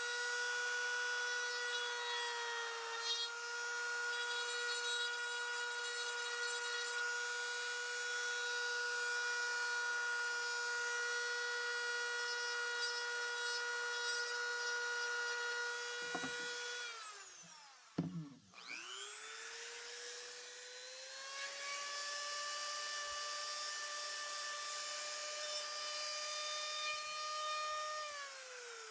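Dremel rotary tool with a cutting bit running at a steady high whine while trimming kydex. It winds down a little over halfway through, then spins back up to a slightly higher pitch and winds down again near the end.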